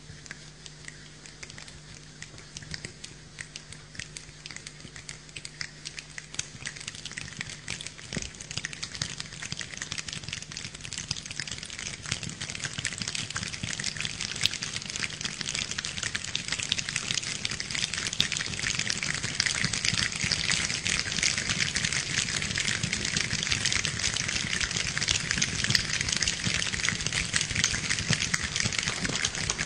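A large choir imitating rain with their hands: a dense patter of many small clicks and rustles that grows steadily thicker and louder, like a shower building toward a downpour.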